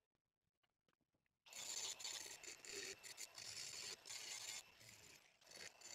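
Cordless angle grinder cutting into a steel tube. After a second and a half of near silence with a few faint clicks it starts suddenly, a loud high-pitched grinding, and dips briefly before running on near the end.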